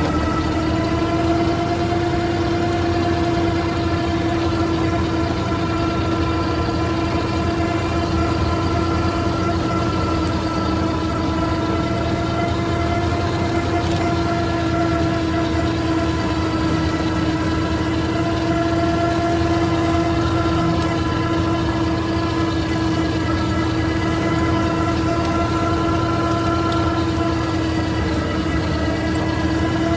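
IMT 533 tractor's three-cylinder diesel running steadily under load, driving a PTO flail mulcher that is chopping grass. A steady whine holds over the engine and rotor noise throughout.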